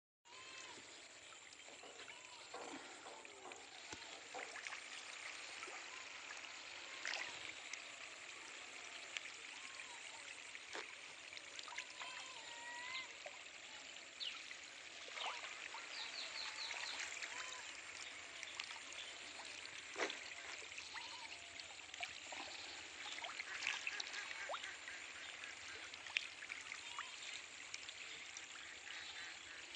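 A dense school of fish fry splashing and churning at the surface of a pond: a faint, steady crackling fizz of water with occasional sharper splashes.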